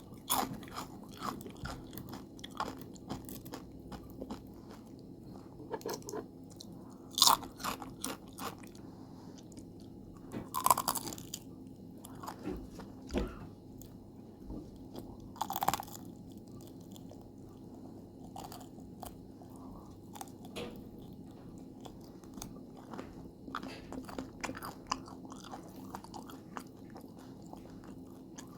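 Close-up eating of crispy homemade potato chips with cheese: irregular crunching bites and chewing, with the loudest crunches scattered a few seconds apart over a steady low hum.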